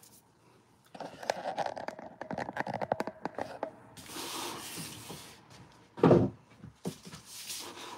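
Handling noises at a work table: a quick run of clicks and taps, then rustling, with one loud thump about six seconds in and a short rustle near the end.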